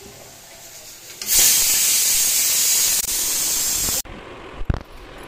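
Hot oil in a kadai hissing loudly as a puri deep-fries, starting abruptly about a second in and cutting off sharply near the four-second mark. A single knock follows shortly after.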